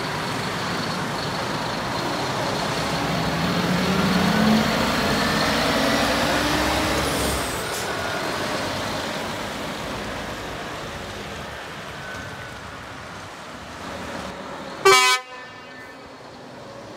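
Scania P 400 crane truck's diesel engine pulling away, revving up as it accelerates and then fading as the truck drives off. About fifteen seconds in, a single short, loud horn toot.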